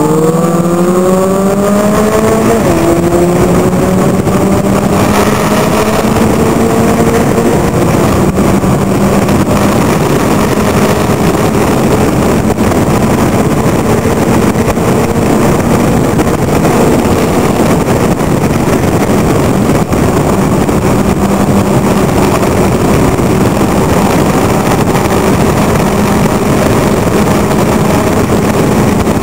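Locost club racing car's engine heard from the open cockpit at racing speed: revs climb for the first couple of seconds, then the engine is held at high, fairly steady revs under full throttle, with dense road and air noise underneath.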